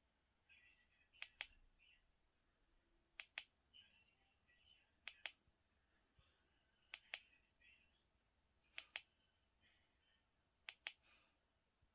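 Remote control button clicking as it is pressed and released, a sharp double click about every two seconds, six times, stepping through a disc menu.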